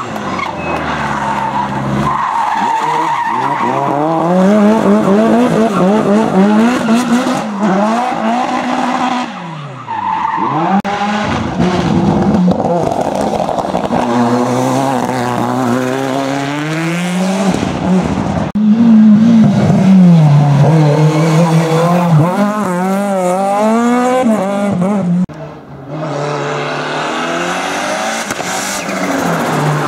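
Hillclimb race car engine revving hard, its pitch climbing and dropping repeatedly through gear changes, with tyres squealing and skidding. The sound breaks off suddenly a few times.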